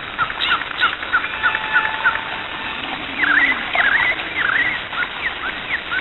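Birds chirping and twittering: many short chirps and swooping whistles over a steady hiss.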